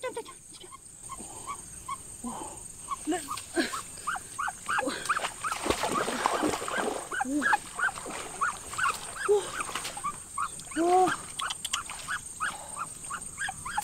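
A dog whining and yelping over and over in short rising-and-falling cries, busiest and loudest around the middle.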